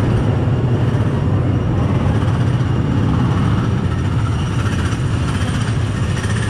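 Small petrol engines of ride go-karts running on the track alongside, a steady low drone.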